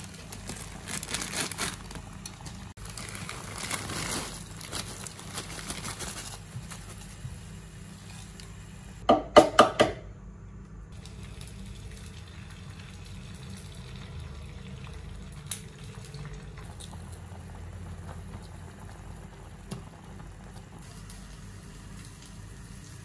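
Water at a rolling boil in a cooking pot, bubbling. About nine seconds in come four sharp knocks in quick succession.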